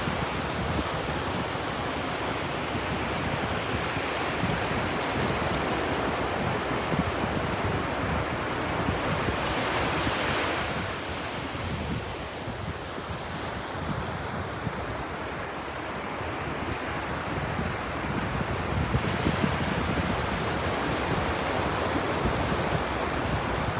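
Ocean waves washing onto a beach in a continuous surf wash, with one wave breaking louder about ten seconds in before the surf eases for several seconds and builds again.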